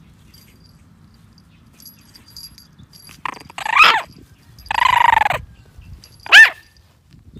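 A French bulldog puppy giving three high-pitched yips and howls: an arched yelp about three seconds in, a held howl under a second long around five seconds, and a short sharp yip near the end, the loudest of the three.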